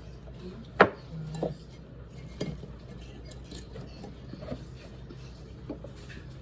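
Occasional clinks and knocks of cutlery and dishes at a breakfast table, the sharpest about a second in, then a few lighter ones spaced out.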